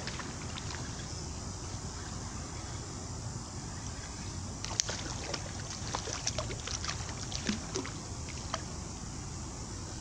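A spinning reel being cranked as a hooked fish is reeled in to the bank, over a steady low rush. From about five seconds in come scattered sharp clicks and small splashes as the fish nears the surface.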